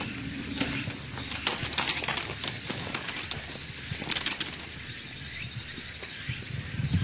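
Hikers' footsteps and trekking-pole tips on a gravel road: a run of sharp clicks and crunches through the first half, fading out after about four and a half seconds, over a steady outdoor hiss.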